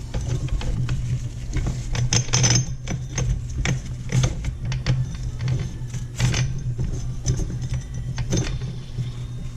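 Irregular clicks, knocks and rattles of the angle grinder and its plastic dust shroud being handled as the cup wheel is fitted back in, over a steady low hum.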